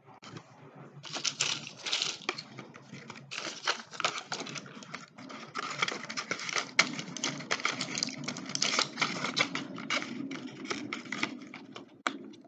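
Dense, quick crinkling and clicking as medicine packaging is handled at close range, with a few sharper clicks standing out.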